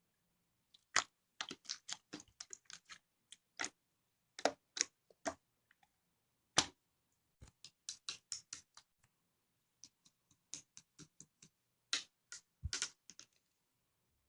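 Clear slime being pressed and worked by hand, giving irregular sharp clicks and pops from trapped air, in quick clusters with short pauses between them.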